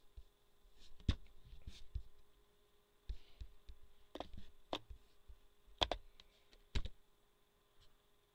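Irregular clicks and taps of a laptop's keys and buttons being pressed, about half a dozen sharper ones among softer taps, over a faint steady hum.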